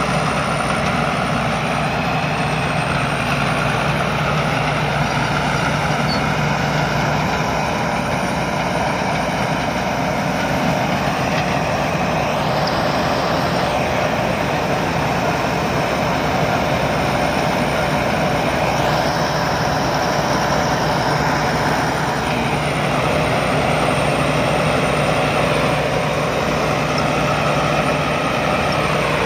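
Sakpattana rice combine harvester running steadily, its engine and harvesting machinery making a loud, continuous mechanical noise.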